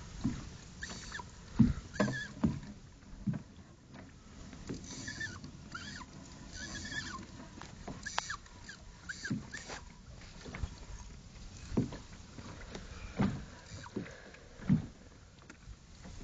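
Knocks and thumps on a small fishing boat, with a few short high chirps in the middle.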